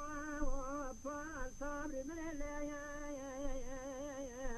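A lone unaccompanied voice singing a Kurdish dengbêj song, drawing out long, wavering, ornamented phrases on held vowels with a few short breaks between them.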